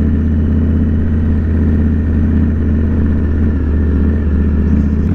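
Indian Scout Bobber's V-twin engine running at low speed over a gravel road, a steady low drone.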